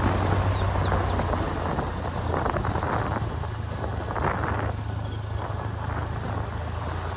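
Vehicle engine and road noise on the move: a steady low drone, with rushes of noise swelling twice, about two and a half and four seconds in.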